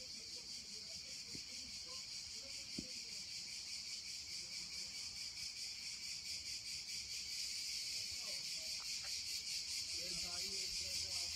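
Insects chirring in the heat, a steady high-pitched drone that pulses rapidly.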